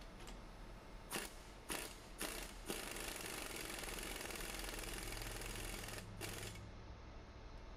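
Pneumatic impact wrench hammering on the forcing screw of a hub bearing press, drawing the wheel hub back into the wheel bearing: four short bursts, then a steady run of about three seconds, then one last short burst.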